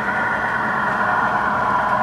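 MTH Premier O-gauge model of a PRR L5 electric locomotive running with its freight train: a steady rumble of wheels on the track and a motor whine, growing slightly louder as it approaches.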